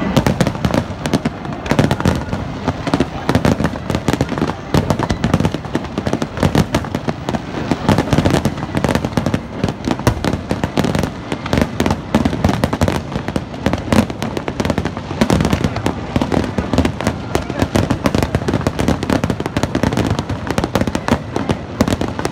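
Aerial fireworks shells bursting in a dense, continuous barrage: a rapid stream of bangs and crackles, many a second.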